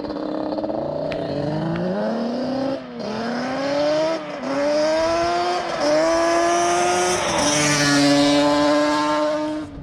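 Yamaha Banshee 350's twin-cylinder two-stroke engine, on aftermarket DMC expansion-chamber pipes, accelerating hard under load. The pitch climbs and drops back about four times as it shifts up through the gears, then holds fairly steady near the end.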